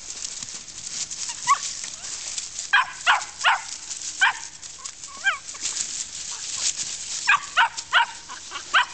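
Hanging Tree Cowdog puppies barking in short, high, sharp barks, one group of several about three seconds in and another near the end: working dogs barking to hold goats at bay.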